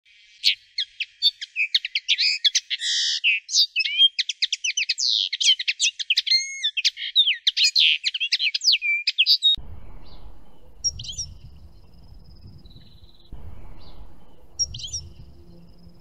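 A songbird sings a long, fast, varied twittering song without a break, then cuts off suddenly about nine and a half seconds in. After the cut comes a quieter outdoor background with a low rumble and two short, high bird calls.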